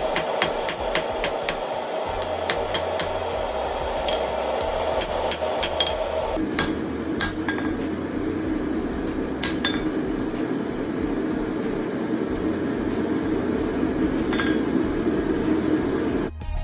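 Hand hammer striking a hot steel axe blade on the anvil, with ringing clinks in quick, regular blows for about six seconds and then fewer, spaced blows, during the final heats that refine the blade's tip and edge. A steady background noise runs underneath and drops lower about six seconds in.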